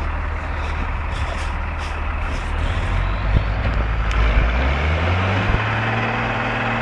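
Heavy cab-over truck's diesel engine working under load as it tows a stuck off-road vehicle out of deep snow. The engine pitch rises about four seconds in as the truck pulls away.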